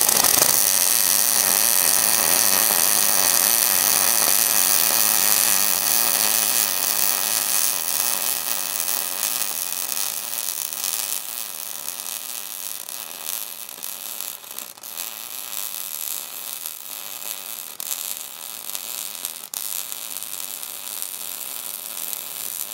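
MIG welding arc from a Miller Millermatic 255 running a continuous bead on steel: a steady crackling hiss, loud for the first several seconds, then quieter for the rest of the bead.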